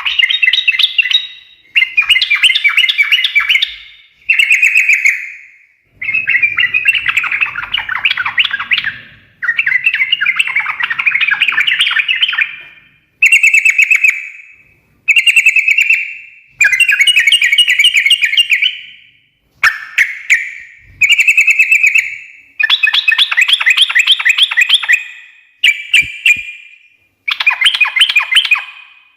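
Yellow-vented bulbul (trucukan) singing loudly in its rapid, bubbly chattering song ('ngekek'), about a dozen warbling phrases of one to three seconds each with short pauses between.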